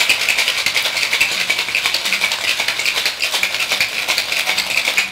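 Ice rattling in a metal cocktail shaker shaken hard and fast in an even, rapid rhythm: the wet shake of the cocktail with ice, which stops at the very end.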